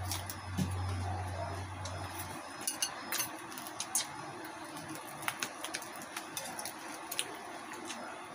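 Crispy-fried pig's head being torn apart by hand: the crackling skin snaps and crackles in many short, irregular clicks. A low hum stops about two seconds in.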